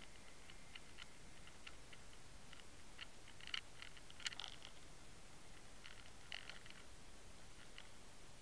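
Faint, irregular clicks and ticks picked up underwater by a camera rigged on the fishing line while a swimbait is retrieved, over a steady hiss; two sharper clicks stand out near the middle.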